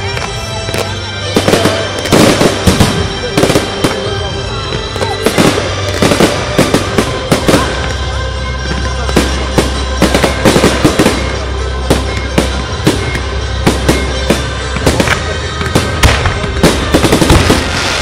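Fireworks display: aerial shells bursting in a dense run of bangs and crackles, several a second, thickest near the end.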